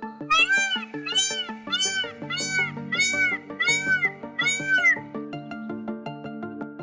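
Background music with a series of about eight short, arched, meow-like animal calls over it, repeating a little faster than twice a second; the calls stop about five seconds in and the music goes on alone.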